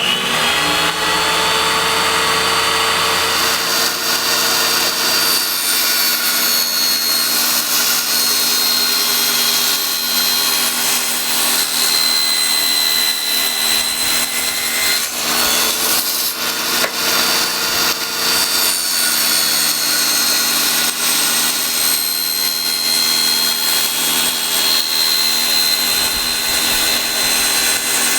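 Circular-saw motor of a homemade table saw spinning up and running at full speed with a steady high whine. Its pitch dips briefly a few times, as when the blade takes a load.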